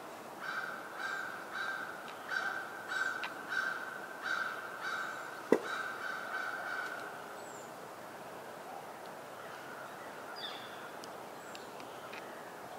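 A bird calling in a quick, regular series of about a dozen short honking calls at an even pitch, stopping about seven seconds in. A single sharp click sounds midway through the series.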